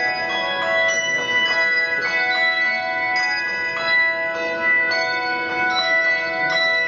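Handbell ensemble ringing a tune: bell notes struck in quick succession, each ringing on so that many pitches overlap.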